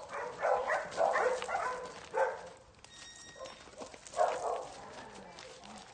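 Young dog barking: a quick run of short barks in the first two seconds, then another bark about four seconds in.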